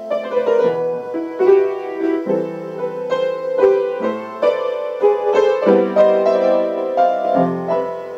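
Piano music: a melody over sustained chords, with a new note or chord struck about every half second.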